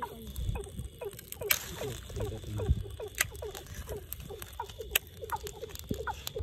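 A chorus of frogs calling at night: short, downward-sliding calls, several a second. A few sharp crackles come from the pile of dry grass and twigs smouldering and catching fire.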